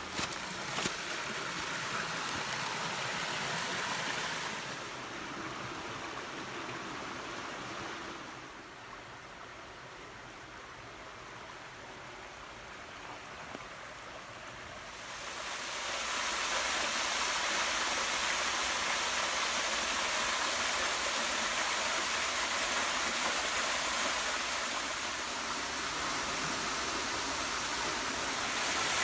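Mountain stream rushing over rocks, a steady noise of flowing water. It drops back in the middle and swells louder again about halfway through.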